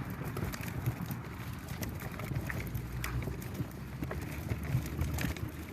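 Compost tumbler being turned by hand, its drum knocking and clunking irregularly over a low rumble as the wet compost inside tumbles.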